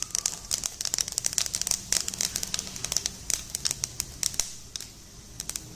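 Cumin and fenugreek seeds crackling in hot oil in a kadhai: a dense run of sharp pops that thins out near the end. This is the tempering (tadka) spluttering as the seeds fry.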